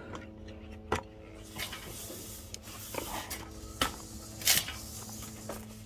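Handling noise from a camera being moved by hand: several short knocks and scuffs, the loudest about four and a half seconds in, over a steady low hum.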